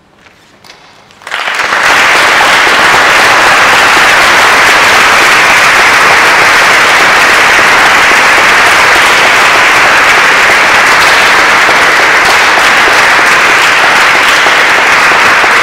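A few scattered claps, then about a second in an audience breaks into loud, sustained applause.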